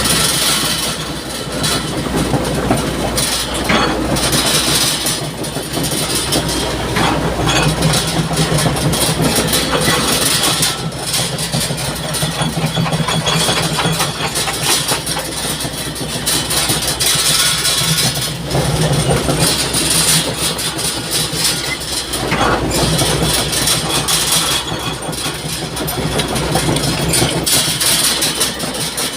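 Heavy excavator engine running steadily and loudly.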